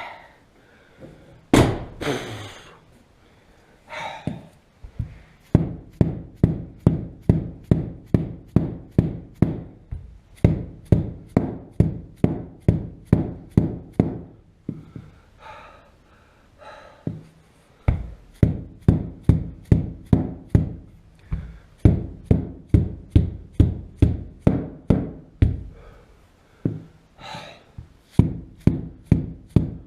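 Rapid knocking in runs of several seconds, about three knocks a second, each knock with a short low ring. A few heavier single knocks come near the start.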